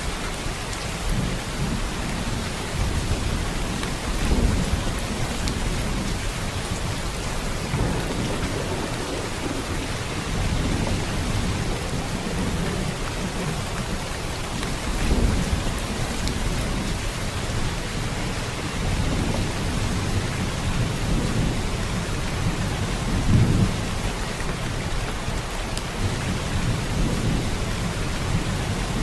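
Steady rain falling, with low rolls of thunder rumbling several times, the strongest about 4, 15 and 23 seconds in.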